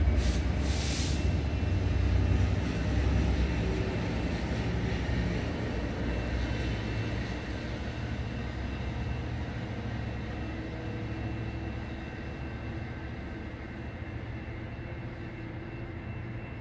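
Low, steady rumble of a distant vehicle, loudest at the start and slowly fading away.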